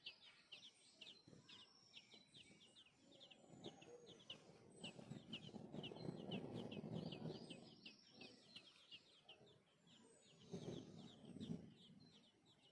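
Baby birds chirping rapidly and continuously, several short high chirps a second, as when nestlings beg for food. A low rustling noise swells under the chirps in the middle and again briefly near the end.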